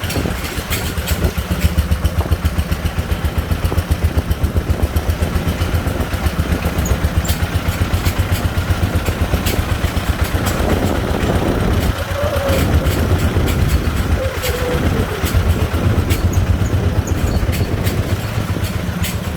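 Single-cylinder diesel engine of a sand-laden công nông three-wheeler chugging steadily under load, with an even, fast pulsing beat.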